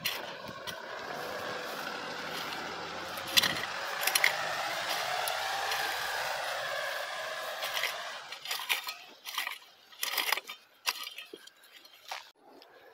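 A passing vehicle's steady noise swells and fades over the first eight seconds. After that come scattered scrapes and knocks of a rake spreading composted manure over tilled soil.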